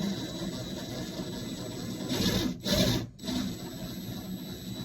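Rubbing and scraping as a wall light switch is pushed and worked into its electrical box, with two louder scrapes around two to three seconds in.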